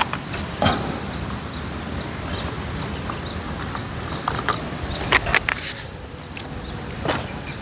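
A plastic water bottle is handled and water is poured from it into an aluminium mess tin, with sharp crinkles and clicks of the bottle about half a second in, around five seconds and near the end. Through the first half a small high chirp repeats about twice a second.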